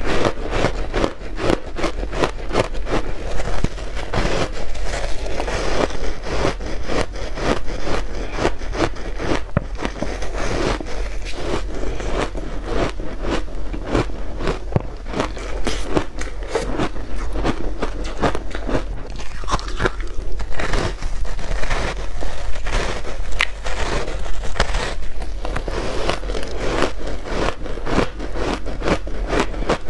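Matcha-powdered shaved ice being bitten and chewed: a dense, unbroken run of sharp crunches and crackles.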